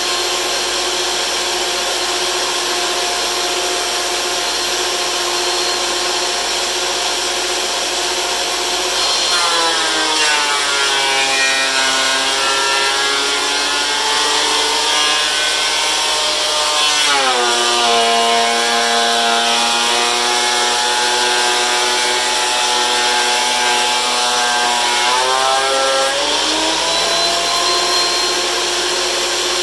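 DeWalt benchtop thickness planer running with a steady whine. About nine seconds in, a board feeds through the cutterhead and the motor's pitch drops under the cut. It lifts briefly and falls lower again partway through, then climbs back to the free-running whine near the end.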